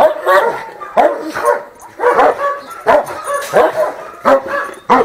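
A dog barking repeatedly, about two barks a second.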